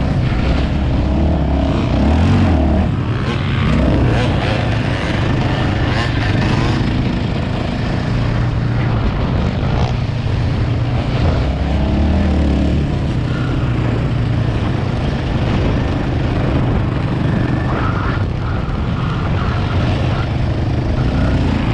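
ATV engine running under throttle while riding, heard up close from the machine, its note shifting a little as the throttle changes.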